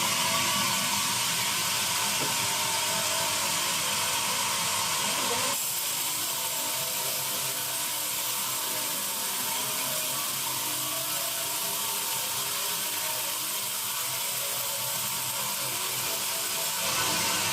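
Sawmill band saw sawing teak wood: a steady, hissing machine noise, strongest in the high range.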